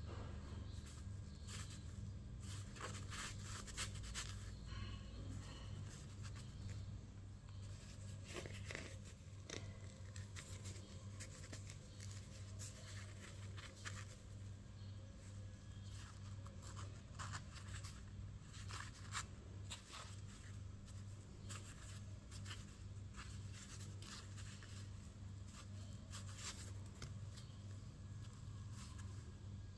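Soft pan-cooked bread torn apart by hand: scattered soft crackling and tearing of crumb and crust, over a steady low hum.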